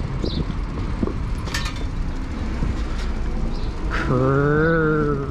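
Steady wind and road rumble on the microphone of an e-bike being ridden. Near the end comes a louder held pitched tone lasting just over a second, bending slightly up and back down.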